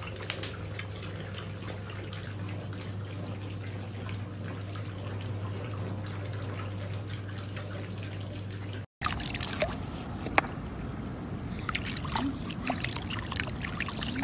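A steady low hum with faint scattered clicks as a litter of puppies feeds from a shared bowl. After a sudden cut about nine seconds in, water trickles and splashes as a puppy is rinsed by hand.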